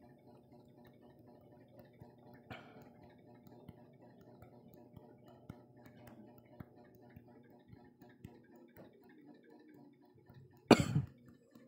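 A faint steady hum with scattered soft clicks. Near the end comes one short, loud throat noise from a person.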